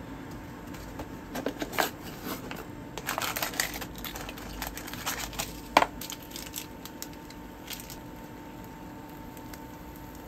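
Plastic food packaging crinkling and rustling as it is handled, with scattered clicks and knocks. The sharpest knock comes about six seconds in, over a faint steady hum.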